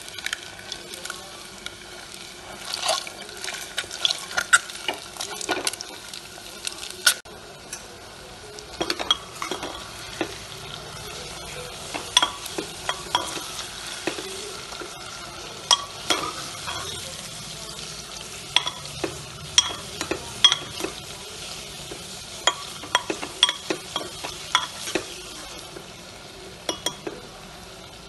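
Boiled eggs, and then sliced onions with garlic and whole spices, frying in hot mustard oil in an aluminium pressure cooker: a steady sizzle with frequent sharp clicks and scrapes of a metal spoon stirring against the pot.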